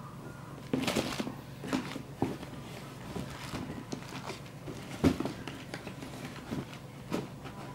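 Handling noise: scattered rustles and soft knocks as sneakers and plastic bags of spare laces are moved and set down, the sharpest knock about five seconds in.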